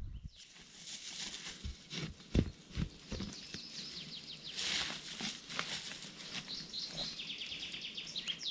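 A shovel thuds dully into sandy soil several times and scrapes, while small songbirds chirp; a fast trill of repeated notes comes near the end.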